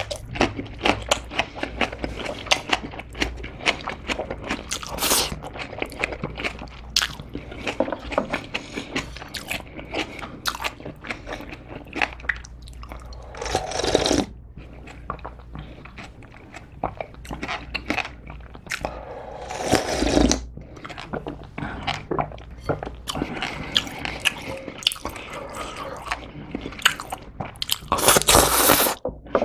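Close-miked eating: a steady run of crunchy, wet chewing and biting. Around halfway comes a long slurp of anchovy broth drunk straight from the bowl, and a loud slurp of noodles near the end.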